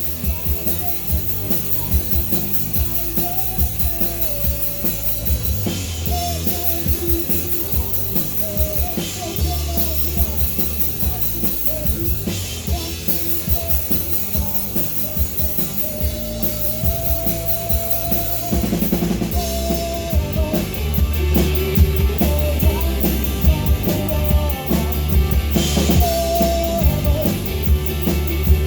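Rock band playing live: a drum kit keeping a steady beat with cymbal crashes under a wavering melody line. The band plays louder about two-thirds of the way through.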